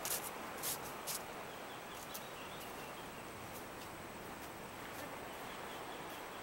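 Steady outdoor background hiss, with a few sharp clicks in the first second and one more about two seconds in, and faint high chirps from a bird or insect shortly after.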